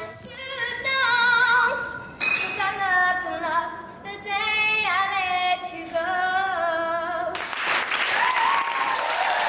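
A young girl singing held, wavering notes at an audition, cut off about seven seconds in by a burst of noise from the studio audience.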